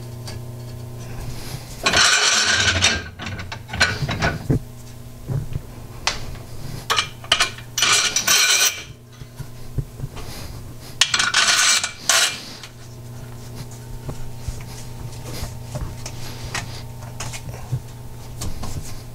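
Metal clanking and rattling as a two-stroke cylinder is set and clamped into a honing machine's fixture, in several loud spells about a second long, over a steady low hum.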